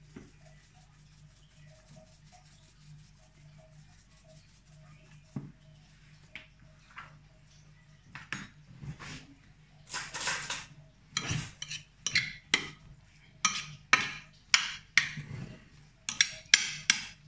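Spoon stirring a grain salad in a glass baking dish: repeated scrapes and clinks against the glass, about two a second. They start about eight seconds in and grow louder and more regular.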